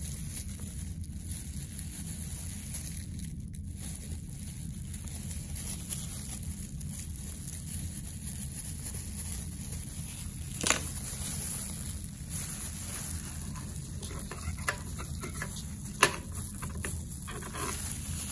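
Dissecting scissors and forceps being handled over a plastic dissecting board: a few small ticks and two sharp clicks, one a little past halfway and a louder one near the end, over a steady low room hum.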